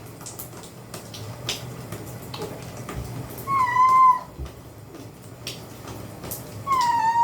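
Domestic cat meowing twice in distress while being bathed: two drawn-out calls, each held briefly and then dropping in pitch at the end.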